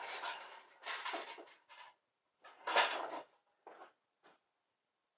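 Metal clattering and scraping in short, irregular bursts, about five of them with pauses between, as heavy metal parts are handled in a small room.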